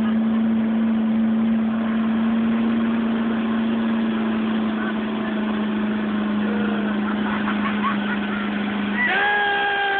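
Motorboat engine running at a steady pitch under a wash of water and wake noise while towing. About a second before the end, the engine note changes to a higher pitch that then slowly falls.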